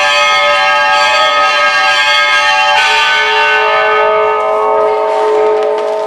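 Church bells ringing, many overlapping clanging tones hanging in the air. There is a fresh stroke about three seconds in, then the peal begins to die away near the end.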